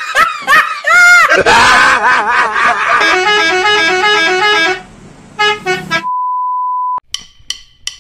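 Musical telolet bus horn playing quick sequences of notes, some sliding up and down and then switching rapidly between steady pitches. About six seconds in comes a steady one-second beep, followed by a few short clicks.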